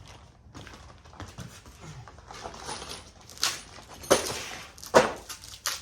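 Outdoor dining table parts being handled and set in place: rustling and light knocks, then four loud thumps in the second half as the frame pieces are put down.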